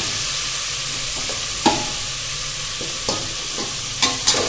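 Raw chicken bones sizzling as they fry in hot oil and spices in a metal pot. A perforated metal spoon stirs them, clicking against the pot a few times.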